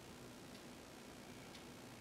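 Near silence: room tone with a faint tick about once a second.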